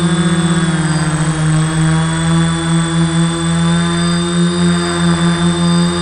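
Custom-built quadcopter's motors and propellers buzzing close to the camera, with a thin high whine above the drone. The pitch steps down slightly about a second in, and the level pulses rapidly throughout.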